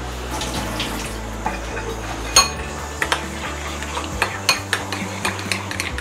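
A metal spoon stirring mayonnaise and mustard in a ceramic bowl, clinking and scraping against the bowl now and then.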